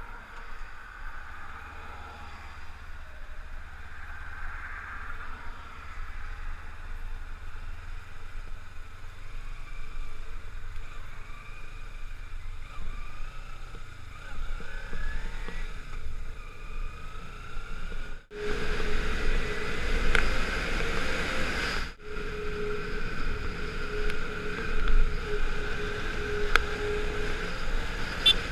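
Kawasaki Ninja 300 parallel-twin engine running under way, its pitch rising as it revs through the gears, with wind rush. From about 18 seconds in the wind noise is louder, over a steady hum.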